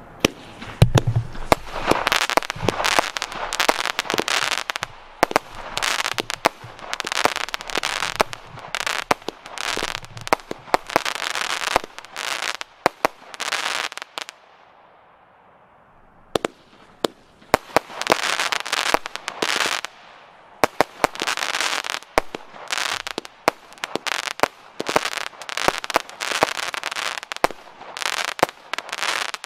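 Piromax Galaxis 32-shot, 16 mm consumer firework battery firing shot after shot, each bang followed by a spray of crackling. There is a lull of about two seconds midway before the shots resume.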